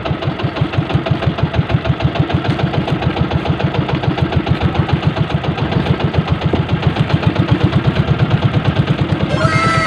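Small engine running steadily, an even rapid beat of firing strokes. Near the end a few falling whistling tones come in over it.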